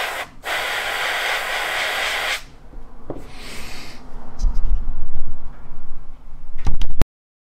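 Spray hissing in bursts: one strong burst of about two seconds, then a shorter, fainter one. Then low rumbling knocks and a few sharp clicks, and the sound cuts off abruptly.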